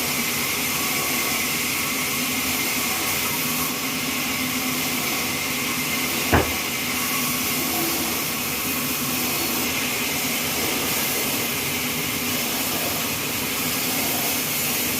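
Horizontal trolley band saw in a sawmill running steadily: a dense high hiss over a low hum, with one sharp knock about six seconds in.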